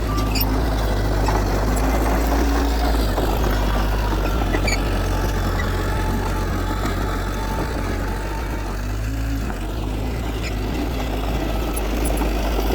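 Diesel engine of heavy earthmoving machinery running steadily, a constant low drone.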